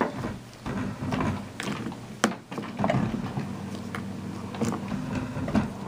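Handling noise of a gloved hand fitting air filters into the vents of a continuous ink supply system's plastic ink reservoirs: rustling and scattered plastic clicks, with one sharp click a little over two seconds in.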